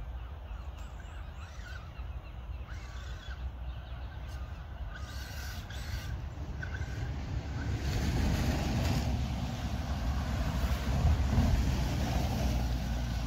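Low wind rumble on the microphone with a few faint short chirps in the first half; the rumble grows louder about eight seconds in.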